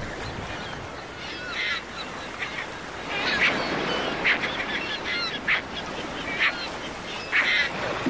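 Gulls calling in short, repeated cries about once a second, some sliding down in pitch, over a steady wash of sea sound.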